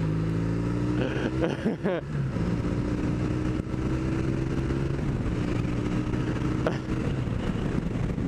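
Kawasaki 440 LTD cruiser's parallel-twin engine running under way. Its pitch wavers briefly about a second in, then holds steady.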